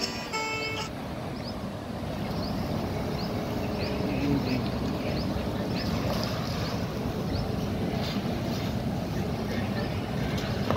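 Steady road and engine noise from SUVs driving past, with wind on the microphone. A short multi-pitched tone, like a honk, sounds right at the start, and faint high chirps repeat about twice a second through the middle.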